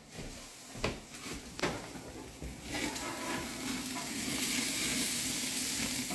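Burger patties sizzling on a gas barbecue grill. A few light knocks come in the first two seconds, then the sizzle rises to a steady hiss about three seconds in.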